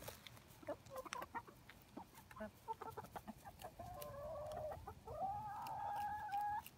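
Seven-month-old chicken vocalising: scattered light taps, then two drawn-out calls in the second half, the second one higher and longer.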